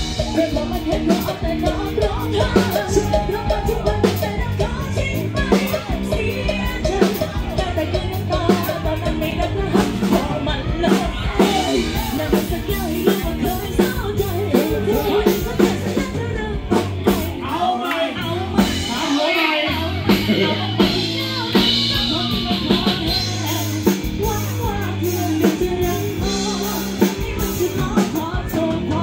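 Live band playing a song through a PA system: drum kit, bass and guitar under a singer's voice, with a steady beat. About two-thirds of the way through, the bass and kick drop out for a couple of seconds, then the full band comes back in.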